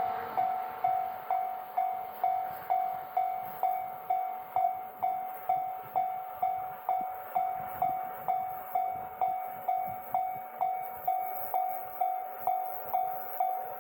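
Railway level crossing warning bell ringing steadily, a single clanging tone struck a little over twice a second, each strike fading before the next.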